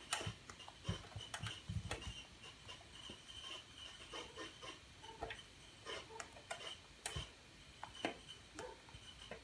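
Faint, scattered clicks and small scrapes of screws being worked in by hand to fix an expansion panel to the rear of a sequencer, with a couple of louder taps in the first two seconds and near the end.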